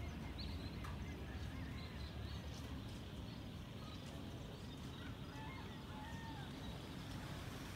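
Open-air ambience: a steady low rumble with scattered faint chirps of small birds, mostly a little past the middle.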